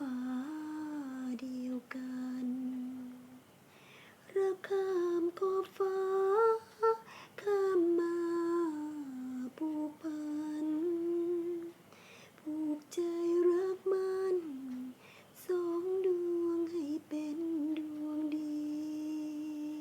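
A woman's voice humming a slow song melody unaccompanied, with long held notes that step up and down in pitch and short breaths between phrases.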